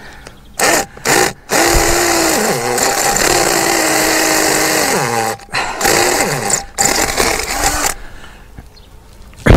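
Power drill boring into a concrete block wall: two short bursts, then a long run of about four seconds with the motor's pitch dropping under load and picking up again, then two more short bursts before stopping about eight seconds in. The hole sits on a joint between blocks, which makes it hard to drill.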